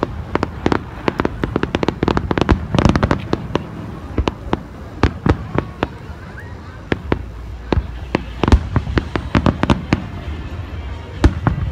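Aerial fireworks shells bursting, many sharp bangs and cracks in quick succession, thinning out briefly about halfway through before picking up again.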